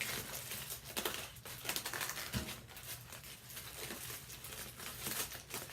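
Light crinkling and clicking as takeout food containers and utensils are handled during eating, over a faint steady low hum.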